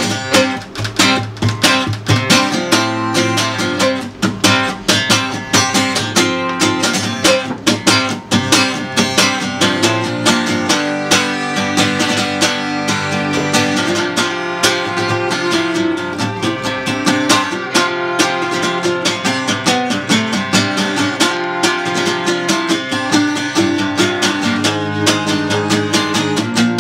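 Acoustic guitar strummed in a steady rhythm, with a violin bowing held notes over it.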